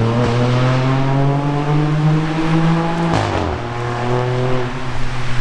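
BMW M3 G80 Competition's twin-turbo straight-six through a titanium R44 Performance exhaust, its pitch climbing steadily for about three seconds. Then the pitch drops sharply with a brief crack, and the engine runs on at a lower, steadier pitch.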